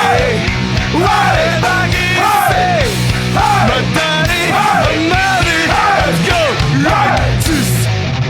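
Rock music with a singer: the voice repeats a short arching phrase about once a second over a loud band.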